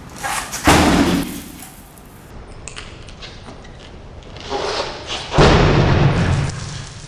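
Two heavy blows of a 10-pound sledgehammer against an impact-glass window, about five seconds apart, each a loud thud with about a second of low rumble fading after it.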